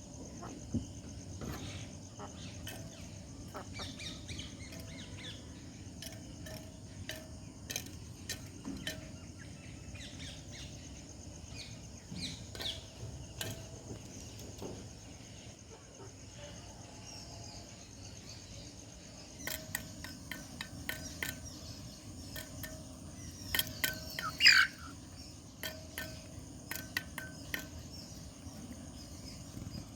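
Young free-range desi chickens, two to three months old, chirping in short scattered calls, with one louder falling call about three-quarters of the way through. A steady high insect drone, like crickets, runs underneath.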